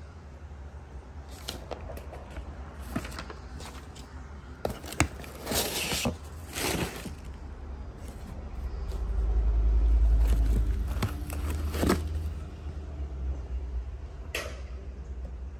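Unboxing handling noise: paper, cardboard and plastic packaging rustling and crinkling, with scattered sharp clicks. A low rumble swells and fades about halfway through.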